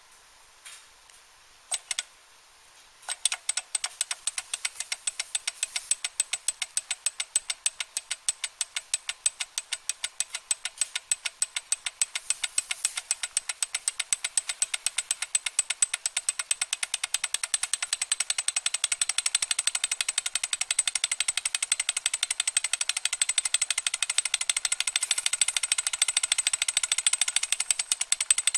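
Small flame-heated model Stirling engine starting up: after a couple of clicks as the flywheel is spun, it catches about three seconds in and runs with an even, rapid clicking that speeds up steadily. It now runs because its hot end has heated up enough, though the flame itself has not changed.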